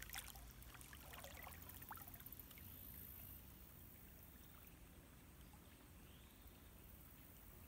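Near silence: faint water sloshing and small splashes in the first couple of seconds as a wader ducks under the river, then only a quiet, steady outdoor background.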